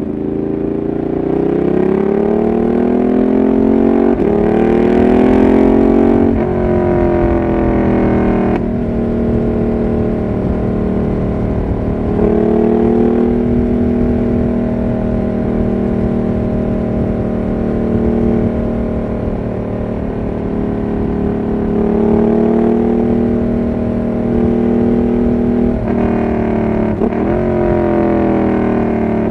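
Ducati Monster 1200 R's L-twin engine through an SC Project exhaust, accelerating hard through three upshifts in the first nine seconds or so, then holding a steady cruise at expressway speed. Near the end the revs dip and climb again around another gear change.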